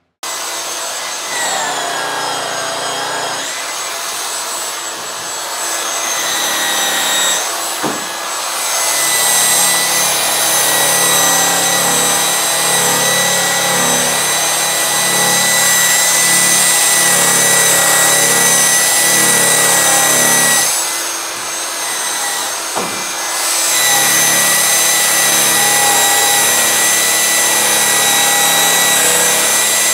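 DeWalt rotary polisher spinning a white flannel airway buffing wheel at about 2200 RPM against an aluminum snowmobile tunnel in a finishing pass: a steady motor whine over the rush of the wheel on the metal. It eases off briefly about two-thirds of the way through.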